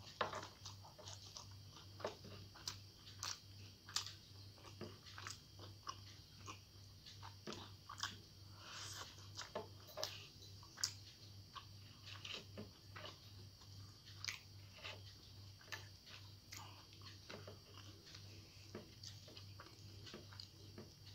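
Close-miked eating: irregular crisp crunches and chewing as mouthfuls of rice mixed with fried bitter gourd are eaten by hand, over a faint steady low hum.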